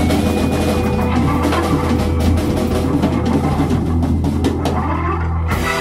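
Rock band playing, with the drum kit prominent over a steady bass line and a loud crash near the end.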